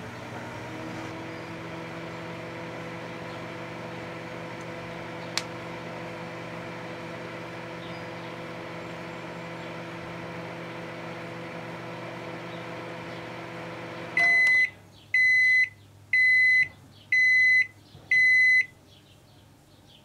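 Rival microwave oven running with a steady hum, with a single sharp click about five seconds in. About fourteen seconds in, the hum cuts off and the oven gives five loud beeps about a second apart, signalling that the heating cycle is done.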